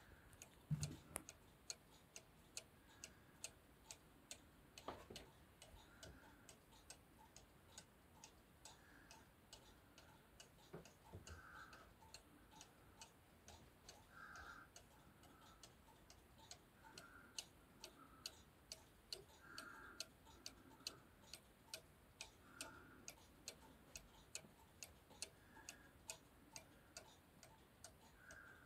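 Weight-driven cuckoo clock ticking steadily, an even run of light tick-tock clicks from its escapement, with a soft thump about a second in.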